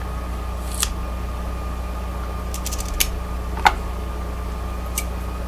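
A handful of small sharp metallic clicks and taps from Kwikset lock cylinder parts being fitted back together during reassembly, the loudest about two thirds of the way in, over a steady electrical hum.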